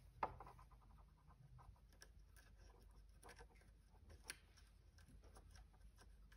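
Near silence with faint, scattered ticks and scratches of a soldering iron tip and wire being worked on a speaker terminal, with one slightly louder tick about four seconds in.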